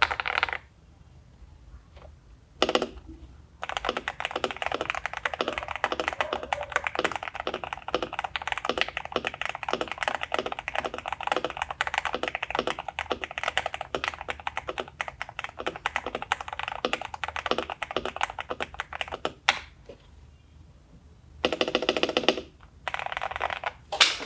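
Mechanical keyboard with Cherry MX Hyperglide Black linear switches being typed on, creamy and poppy: a brief burst of keystrokes, then fast continuous typing for about fifteen seconds, a pause, and two short bursts near the end.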